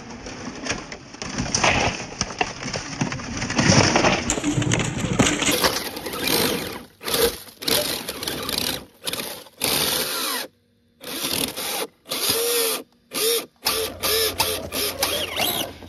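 Small electric RC rock crawler's motor and geared drivetrain whining, the pitch rising and falling with the throttle, cutting off abruptly several times in the second half.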